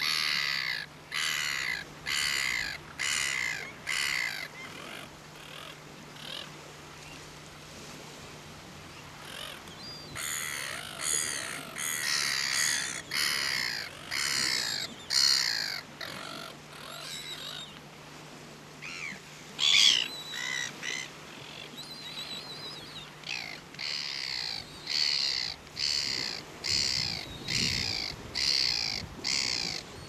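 Caspian terns calling: runs of short, rasping calls, about two a second, with a few pauses between the runs and one louder call about twenty seconds in.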